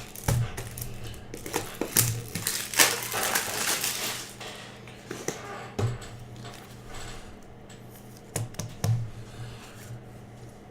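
Baseball cards and pack wrappers being handled: a run of sharp clicks and rustles as packs are opened and cards flicked through, with a longer rustle about two seconds in.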